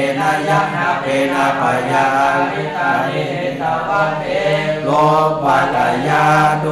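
Pali text recited in a chanting voice: a steady sing-song recitation of held, even notes in short phrases.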